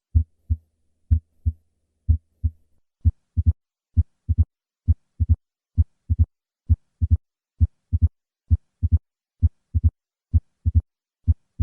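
Heart sounds heard through a stethoscope: three normal lub-dub beats, then each beat gains a sharp extra click very soon after the second heart sound. That click is the opening snap of mitral stenosis, caused by the thickened mitral valve.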